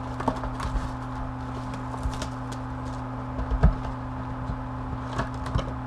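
Trading-card box and foil packs being handled: scattered light taps and rustles, with one louder knock about three and a half seconds in, over a steady electrical hum.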